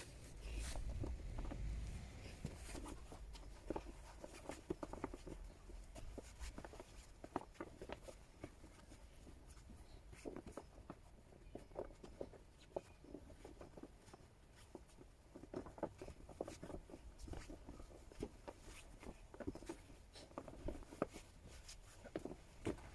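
Snow crunching in irregular soft crackles.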